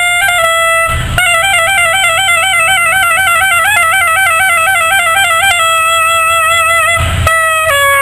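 Soprano saxophone playing a solo melody, with a quick run of rapidly alternating notes in the middle and short breaks about a second in and near the end, where the line starts to step down in pitch.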